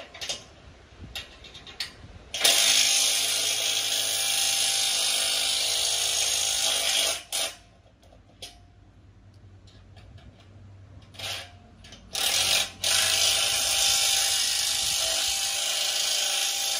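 A handheld power tool running steadily in two runs of about five seconds each, fastening hardware on a steel gantry beam. Short metallic clicks and knocks fall between the runs.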